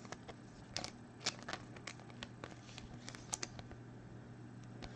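2020 Bowman Chrome baseball cards being handled and shuffled through by hand: a scattering of light clicks and taps as cards slide and are set down, over a low steady hum.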